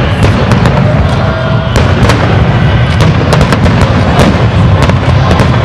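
A rapid barrage of aerial firework shells bursting: overlapping booms merge into a continuous low rumble, with sharp reports cracking out several times a second.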